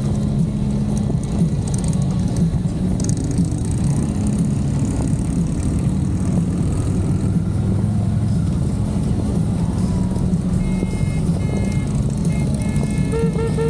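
Many motorcycle engines running together in a steady, loud rumble. From about three-quarters of the way in, a series of short, evenly repeated high beeps sounds over it.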